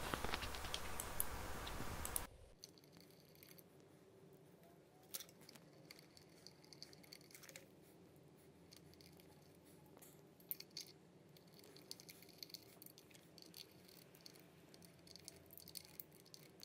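Faint scattered clicks and light taps from hand tools and metal parts being handled on a Tesla drive unit, as T30 screws go into its cover. About two seconds in the background hiss drops abruptly, leaving only sparse small clicks.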